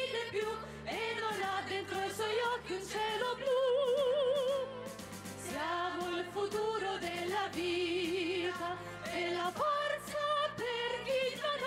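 Live music from a small ensemble: a melody line with wide vibrato on its held notes over a steady low accompaniment.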